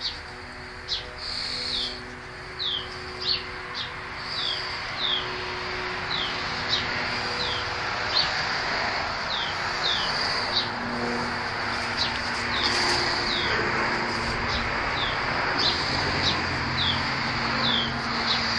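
A bird chirping over and over, each chirp a short falling note, one or two a second, over a steady background hiss with a faint low hum.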